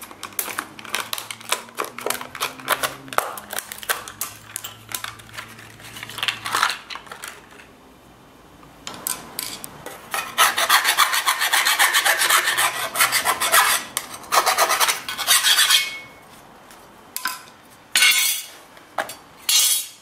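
Round file rasping in fast strokes on the edge of a hole-sawed hole in steel plate, deburring it. The loud run of strokes comes in the second half, followed by two short bursts near the end. Before that, a run of clicks and crinkles as stiff plastic packaging is cut open with scissors.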